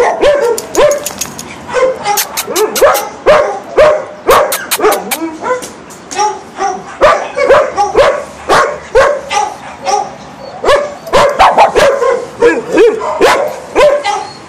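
Dogs barking in quick, repeated short barks. A few short runs of fast sharp clicks come between them.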